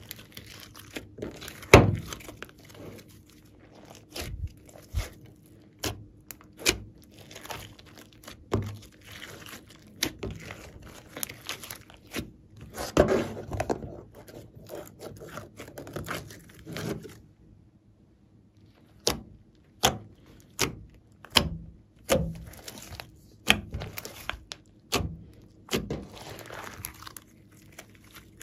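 Glossy slime being squeezed, folded and kneaded by hand: sticky squishing with many sharp pops and clicks. There is a short quiet lull about two-thirds of the way through, then pops come about once a second.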